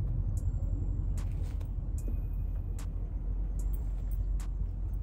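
Steady low rumble of outdoor background noise, with a few faint clicks scattered through it.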